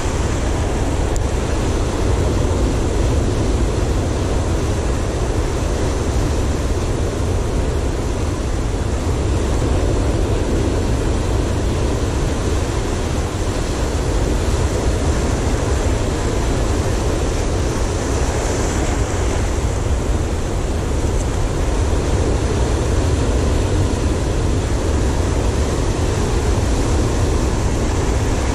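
Surf breaking and washing over rocks, heard as a steady wash of noise, with a heavy low rumble of wind on the microphone.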